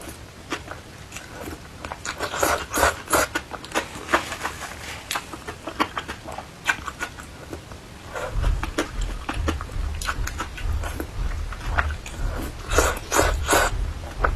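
Close-up eating sounds: a person chewing and crunching food, in clusters of short sharp crunches. About halfway through, a steady low rumble joins underneath.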